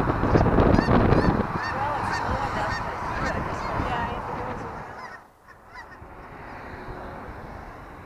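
A flock of geese honking, many short calls overlapping, with wind rumbling on the microphone for the first second and a half. The calls fade out about four seconds in and give way to a quieter steady hiss.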